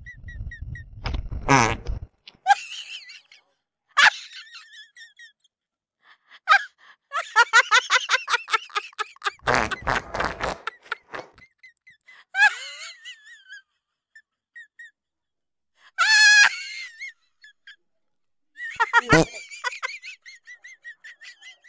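Prank fart noises, a low rasp in the first two seconds and another about ten seconds in, with bursts of laughter and gasps in between.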